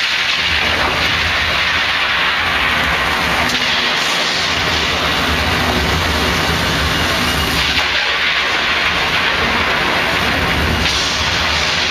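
Soundtrack of a projection-mapping show played over outdoor loudspeakers: a loud, steady rushing noise with a deep rumble underneath, like heavy rain and thunder, swelling and easing in waves.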